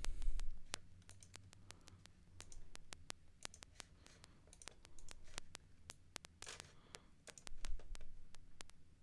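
Scattered sharp clicks and crackles, some in quick runs, over a low steady hum, with a few short rustling noises, the longest about six and a half seconds in. This is the strange noise that the streamer blames on a faulty, overheated audio input or console.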